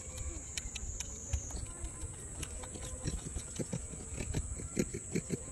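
A macaque chewing corn kernels off the cob: a run of quick, irregular crunching clicks, thickest in the second half.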